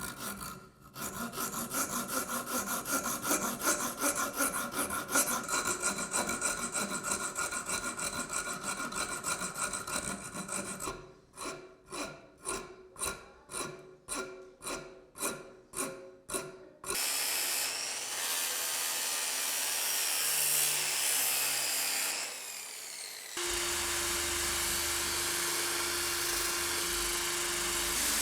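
Hand strokes of a file or sharpening stone across a steel cleaver blade: fast back-and-forth rubbing, then slower separate strokes a little under two a second. About two-thirds through, a small power tool starts running steadily, taking on a steady hum near the end.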